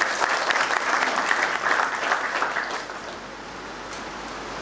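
Audience clapping, a dense patter of many hands that dies away about three seconds in.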